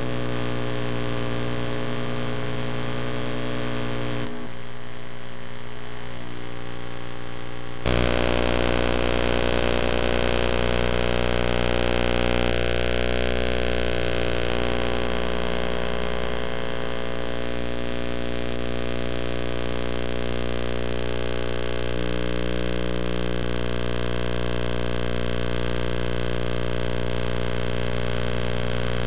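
A steady hum with many overtones, dipping slightly about four seconds in and getting louder about eight seconds in.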